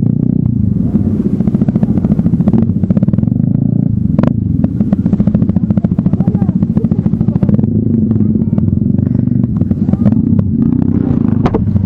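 Motorcycle engine running steadily, a fast even pulsing that holds through the whole stretch.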